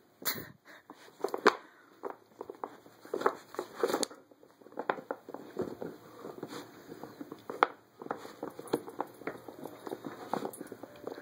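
A dog pawing and mouthing at a wooden puzzle toy: irregular clicks and knocks of claws and muzzle against the wooden board and its wooden and cork pegs, the loudest knock about one and a half seconds in.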